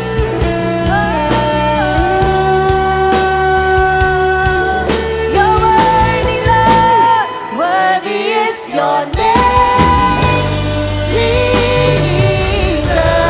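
Live church worship band playing, with a singer holding long, gliding notes without clear words. The bass drops out for about two seconds around seven seconds in, then comes back.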